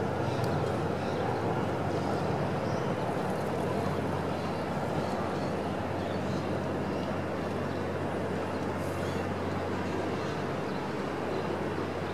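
Steady hum of city traffic, with a low droning undertone and a few faint high chirps here and there.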